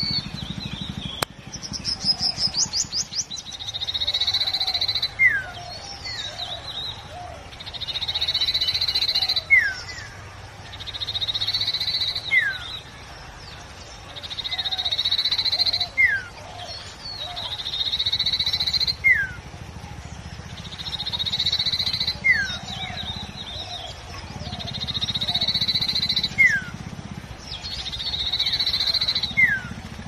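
A small yellow songbird sings the same buzzy song over and over, about once every three seconds. Each song is a drawn-out buzz ending in a quick downward-sliding note. Near the start there is one quick run of rapid notes.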